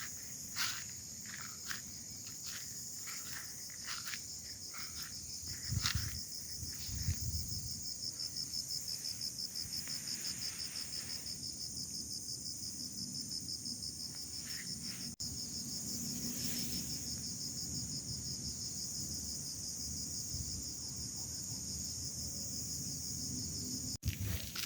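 Insects chirring in a steady high drone, joined about a third of the way in by a fast, evenly pulsing trill. A scattering of light clicks and knocks sounds in the first few seconds.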